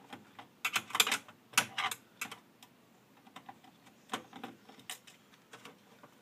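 Irregular light clicks and clatter of a screwdriver and small parts against the monitor's metal chassis and circuit boards during disassembly, in short clusters, the loudest about a second in.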